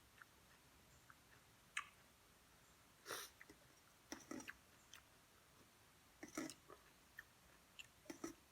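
Faint chewing and mouth sounds of someone eating, with small clicks throughout and a handful of short, louder smacks or breaths.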